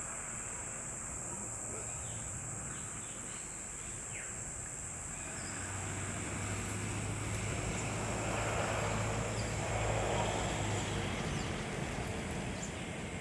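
Outdoor ambience: a steady high-pitched insect buzz, and a low rumbling swell of noise that builds from about five seconds in, peaks near ten seconds and fades.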